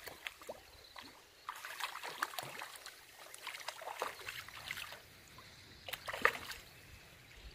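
Water splashing in irregular bursts, with several sharp clicks, as a wading man's hands work at a fishing net and the fish caught in it in a shallow river.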